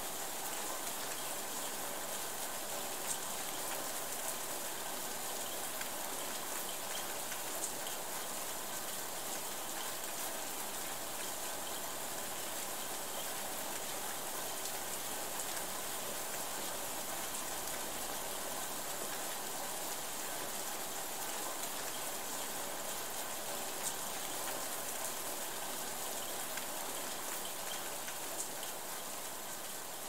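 Steady rain, an even hiss without let-up, with a few sharper drop hits standing out now and then.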